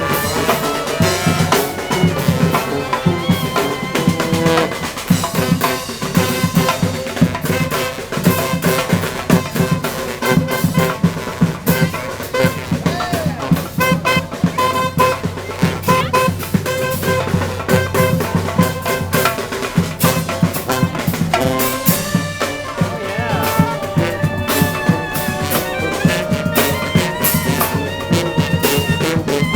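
Live brass street band playing: brass horns carrying the tune over drums keeping a steady beat.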